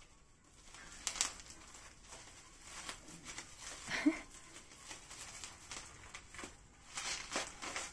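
Clear plastic and bubble-wrap packaging crinkling and tearing as it is picked at and pulled off a long package by hand. It comes in irregular rustling bursts, the loudest about a second in, around four seconds in and near the end.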